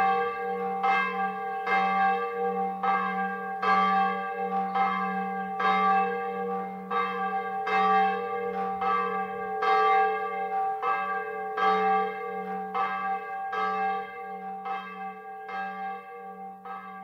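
Bells struck in an even rhythm, about three strokes every two seconds, each ringing on over a steady low hum, growing quieter toward the end.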